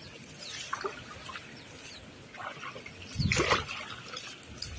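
Grass leaves and an orange nylon mesh net rustling as they are handled, with scattered small crackles and a louder rustle about three seconds in. Faint bird chirps near the start.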